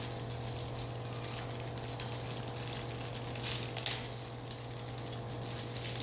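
Faint crackling and rustling of small toy packaging being handled, a few sharper crackles about three to four seconds in, over a steady low hum.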